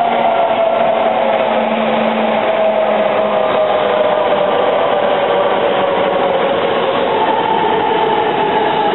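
Shinkansen E926 'East i' test train running past and away at speed: a steady, loud rush of running noise with a whine that slides slowly lower. A higher whine joins near the end.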